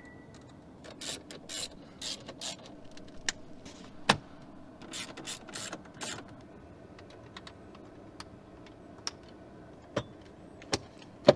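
Plastic dashboard and centre-console trim of a BMW M2 being handled and fitted: short scraping, rustling bursts and a handful of sharp clicks, the clicks more frequent in the second half.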